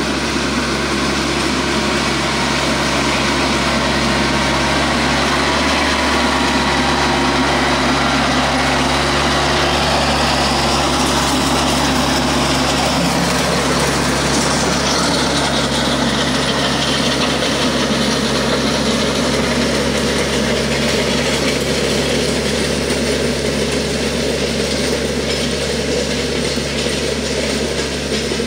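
Diesel engine of a TYM compact tractor running steadily while it pulls a land plane, whose blades scrape through gravel and dirt.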